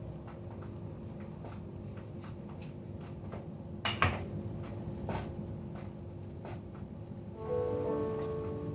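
A low steady hum with a few sharp clicks or knocks, the loudest about four seconds in. Piano music starts near the end.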